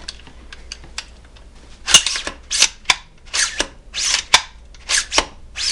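Freshly assembled AR-15 rifle being worked by hand: a run of quick metallic slides and sharp snaps in pairs, about five of them, starting about two seconds in.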